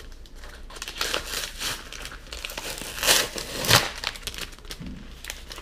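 Paper wrapping and tape being torn and crumpled off a parcel by hand: a steady run of crinkling and tearing, with the loudest rips about three seconds in and again just before four seconds.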